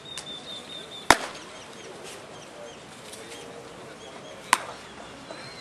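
Two sharp cracks of a baseball striking, about three and a half seconds apart, the first the louder, over steady background noise.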